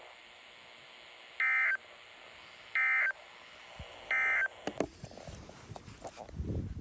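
Emergency Alert System end-of-message data tones over the radio: three short, identical buzzy bursts a little over a second apart, signalling the end of the alert. A few faint clicks and a low rumble follow near the end.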